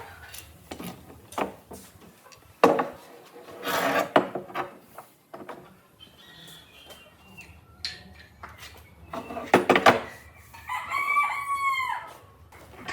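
A rooster crows once near the end, one arched call. Before it come scattered knocks and clatter.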